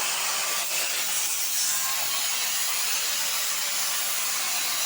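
CNC cutting machine working a sheet: a steady, high-pitched cutting noise with no break.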